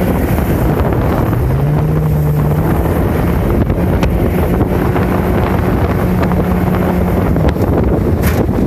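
Mercury outboard jet motor running at full throttle as the jon boat accelerates onto plane, its note dipping and then climbing in the first two seconds before holding steady, with wind on the microphone. Near the end the note falls away as the boat enters the rapid.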